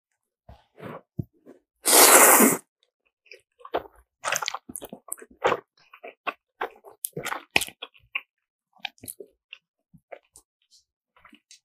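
A person eating jjajang-ramen noodles into a close microphone: one loud slurp about two seconds in, then chewing with many short wet smacks and clicks of the mouth.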